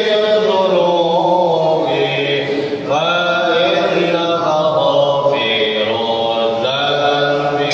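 A man's voice chanting in Arabic in long, ornamented held phrases, with a new phrase starting about three seconds in and again near the end.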